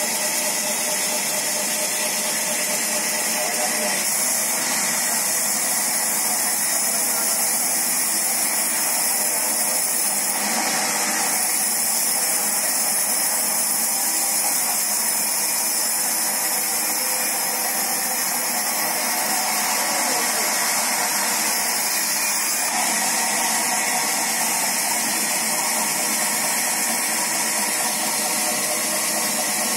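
Large band saw mill running steadily while it rips a big log lengthwise: an even, unbroken mechanical noise with a high hiss.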